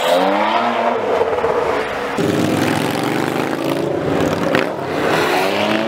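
High-performance car engines revving through loud exhausts: a rising rev in the first two seconds, then a deeper, rougher exhaust note cuts in suddenly about two seconds in, with a single sharp crack about four and a half seconds in.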